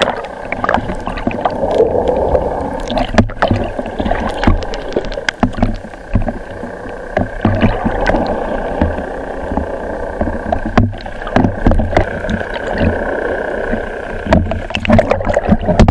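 Muffled water rushing and gurgling heard through a camera held underwater, with many small sharp clicks and a steady faint tone and low rumble underneath.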